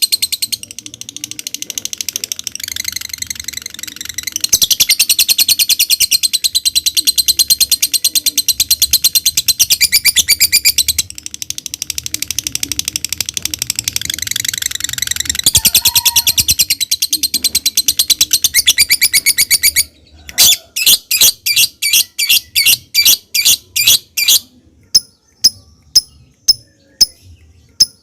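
Lovebird singing a long, very fast high-pitched chattering trill (ngekek) in several extended runs. About twenty seconds in it switches to separate sharp chirps about four a second, thinning to ticking clicks near the end (ngetik).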